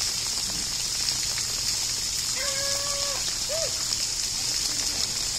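Steady hiss of rain. Just over two seconds in, a short high held call is heard, followed by a brief rising-and-falling note.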